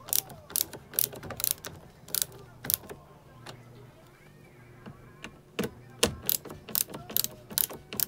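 Ratcheting screwdriver clicking in quick, irregular runs as it hand-tightens screws into a washing machine's bottom plate, with a lull about three to five seconds in. A faint steady low hum lies underneath.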